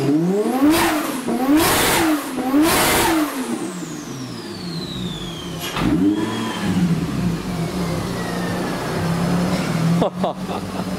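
Turbocharged Toyota 1JZ straight-six in a Nissan S14, blipped hard three times in quick succession with a rush of noise at the top of each rev. A high turbo whistle then falls away over several seconds as the engine settles to a steady idle. The revving is a load test, to see whether boost pressure spikes now that the wastegate is fed by its new line.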